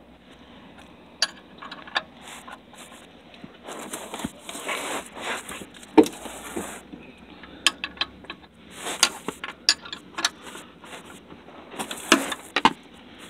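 A wrench clinking on the oil drain plug of a Subaru oil pan as the plug is loosened and unscrewed by hand: irregular sharp metallic clicks and knocks, with scraping and handling rustle between them.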